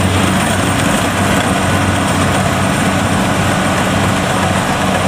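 Kubota DC70 combine harvester's diesel engine running steadily, a constant loud drone with an even low hum.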